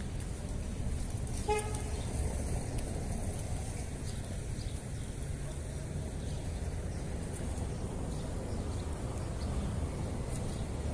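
Steady low rumble of outdoor street ambience, with one short vehicle horn toot about a second and a half in.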